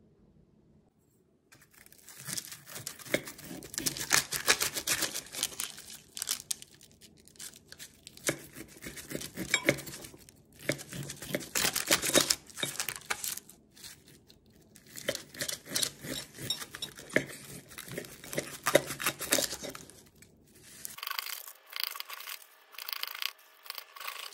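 Kitchen scissors cutting through a crisp deep-fried pork loin cutlet (tonkatsu), the breaded crust crunching and crackling with each cut. The cuts come in runs with short pauses between them.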